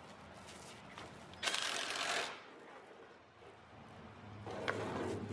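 Paint roller on an extension pole spreading wet gray coating over a trailer's wooden floor: a rasping, sticky rolling noise, loudest in one stroke under a second long about a second and a half in, then building again near the end as a low hum comes in.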